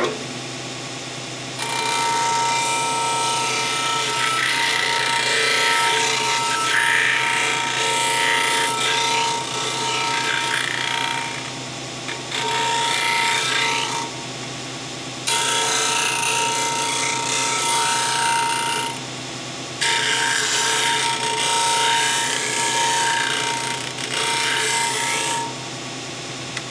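A belt/disc sander runs steadily while a thin wood workpiece is pressed against the spinning sanding disc to round off its corners. The rasping sanding comes in several stretches of a few seconds each, broken by short pauses where only the motor hums.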